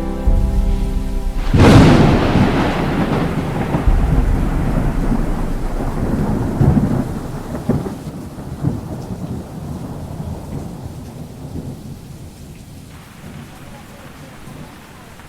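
A loud thunderclap cracks about a second and a half in, then rolls on in a long, fading rumble over steady rain. Music with held tones plays at the start until the thunder breaks.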